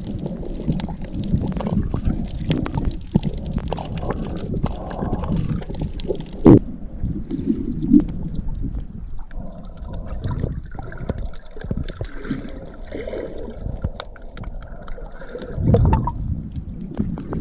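Muffled underwater sound of a camera moving through shallow seawater: irregular gurgling and sloshing of water against the camera housing, with two sharp knocks around the middle, about a second and a half apart.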